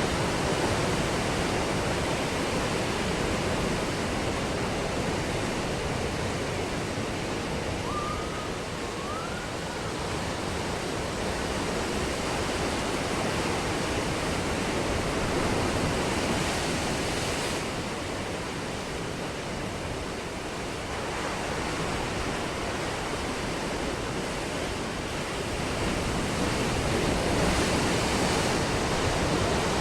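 Ocean surf breaking on a beach: a steady rushing wash that slowly swells and eases, with louder surges near the start, about sixteen seconds in and near the end. A brief faint chirp rises through it about eight seconds in.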